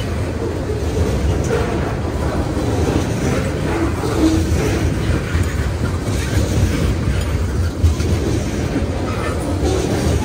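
Freight train rolling past, its wheels running on the rails in a steady rumble.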